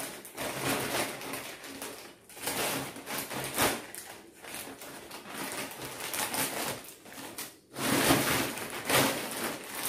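Tightly taped courier packaging being cut and torn open: irregular crinkling, scraping and ripping of tape and plastic wrap, louder for the last couple of seconds.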